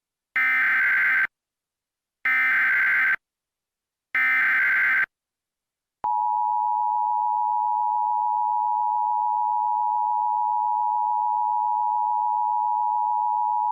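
Emergency Alert System SAME header: three identical bursts of digital data tones, about a second each with short gaps, carrying the coded alert. Then, about six seconds in, the steady two-tone EAS attention signal (853 Hz and 960 Hz together) starts, announcing the emergency message that follows.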